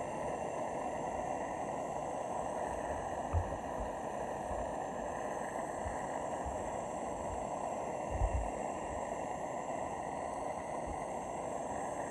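Handheld gas torch flame burning with a steady hiss, heating Shoe Goo glue on an RC boat's motor mount to soften it. Two short low thumps, about three and eight seconds in.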